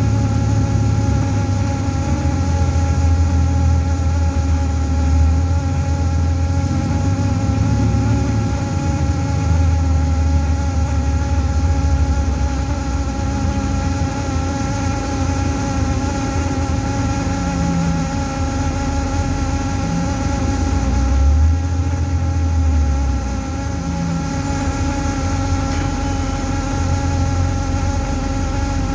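Orion VII city bus: a steady buzzing, vibrating hum made of several even tones, over the low rumble of the bus's engine, which swells and eases. The uploader thinks the buzz probably comes from the heater.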